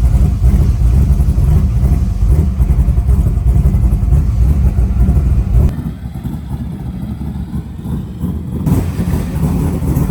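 Motor vehicle running, a loud low rumble. The sound drops and turns duller about six seconds in, then returns near nine seconds.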